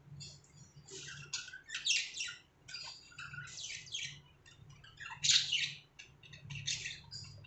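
Budgerigars chattering: a rapid jumble of short chirps and harsh squawks, with the loudest squawks about two seconds in and again about five seconds in.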